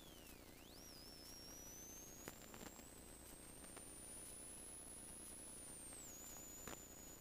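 Near silence with a faint high-pitched whine that dips, climbs slowly over several seconds and falls again near the end, plus a few faint clicks.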